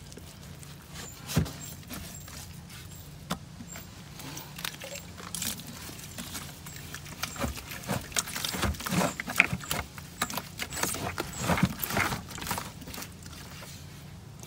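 Irregular taps, clicks and wet slaps of a brush dabbing a coat of UltraCal 30 gypsum cement onto a sculpture, busier in the second half, over a steady low hum.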